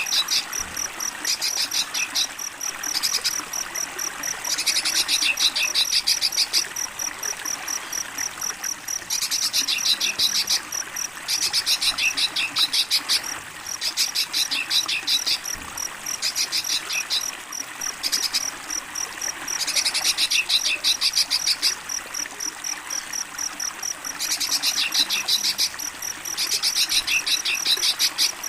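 Crickets chirping in irregular bursts of rapid pulses, each half a second to two seconds long, over a steady hiss of running water.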